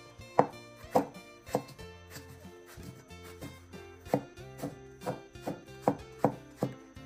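Chinese cleaver slicing an eggplant and striking a thick wooden chopping board: a series of sharp chops about half a second apart, with a short lull near the middle, over background music.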